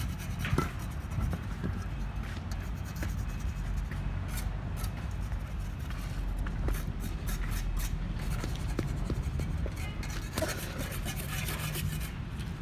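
Scraping and tapping of hand work on the paving, short and irregular, over a steady low rumble of city traffic; faint voices near the end.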